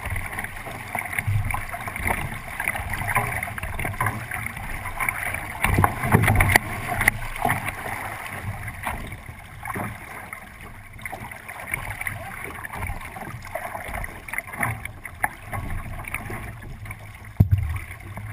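Water rushing and splashing along the hull of a 29er sailing skiff moving fast under sail, with wind on the microphone. Low thuds and a few sharp knocks come through the hull, the loudest near the end.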